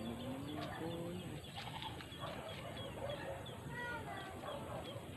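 Many short chirping animal calls repeating throughout, with a low rising call or two in the first second.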